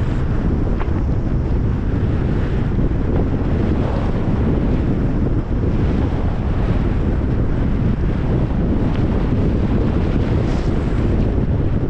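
Strong blizzard wind buffeting a GoPro HERO10 Black's built-in microphone: a loud, steady low rumble.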